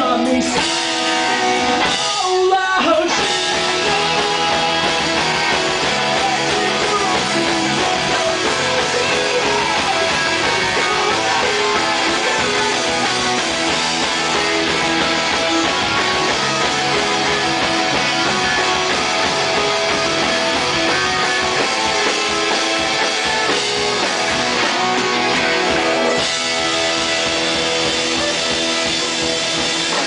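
Live rock band playing loud: electric guitar and bass guitar with a male singer.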